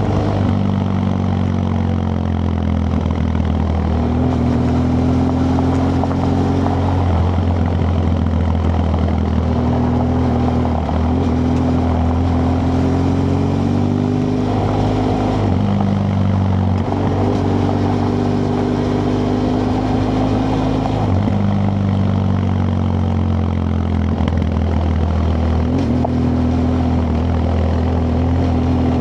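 BMW F 800 GS's parallel-twin engine through its stock exhaust, running under way. Its pitch rises and falls with the throttle and eases off briefly a few times.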